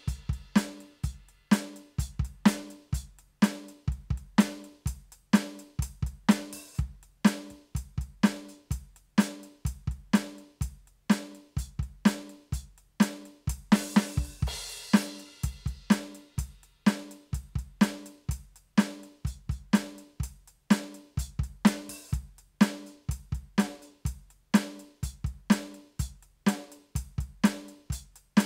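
Electronic drum kit played with sticks: kick, snare and hi-hat sounds in a steady beat, with a cymbal crash about halfway through.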